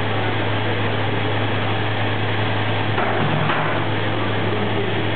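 Olive mill machinery running steadily, a constant electric-motor hum under mechanical noise, with a brief louder scrape or clatter about three seconds in.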